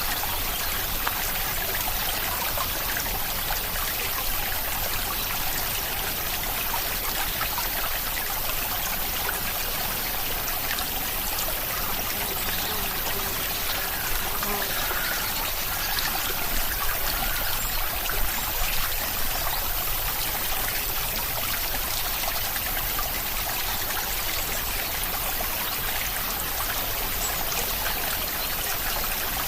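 Steady rain with water trickling and dripping, an even hiss with a few slightly louder splashes around the middle.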